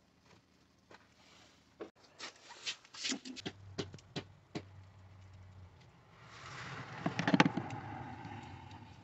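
Hard plastic clicks and rubbing as a car's trunk lamp housing is handled and pressed back into the plastic trunk trim panel. The loudest run of clicks comes about seven seconds in.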